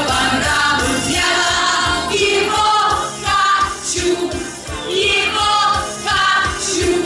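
Female vocal quartet singing in harmony through a PA system, over amplified musical accompaniment with a steady beat.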